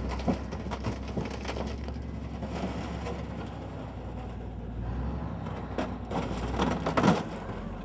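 Old truck toolbox being crushed: irregular crunching and cracking over a steady low rumble, with the loudest crunches near the end.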